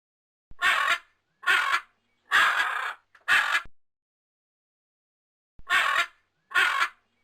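A crow cawing: four harsh caws in quick succession, a pause of about two seconds, then two more caws.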